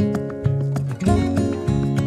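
Background music led by acoustic guitar, with a steady rhythm of plucked and strummed notes.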